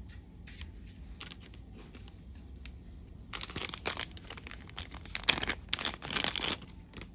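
Packaging crinkling and rustling as it is handled, quiet at first, then a busy run of crackles and tearing-like rustles from about three seconds in.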